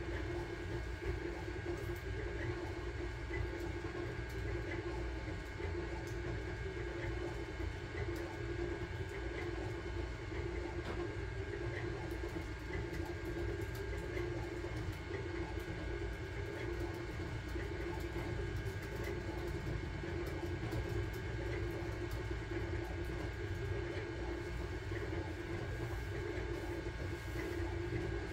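Sunlu Terminator 3 3D printer running a print: a steady mechanical whir from its motors and fans, with faint small ticks.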